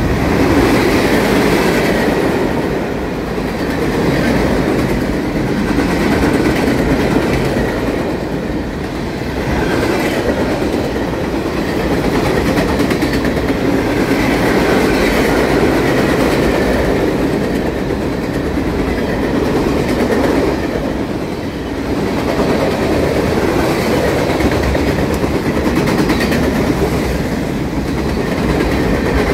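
Freight train boxcars rolling past close by, steel wheels running on the rails in a loud, steady noise that swells and eases a little.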